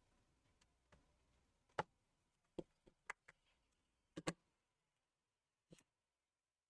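Scattered light clicks and taps, about eight in all, from small tools and parts being handled against an iPhone 7 during a screen replacement, with near silence between them.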